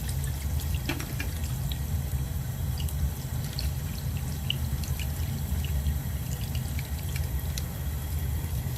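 Hot water running from a bathroom sink tap over an ice-encased flip phone to thaw it, a steady run of water with scattered small drips and ticks.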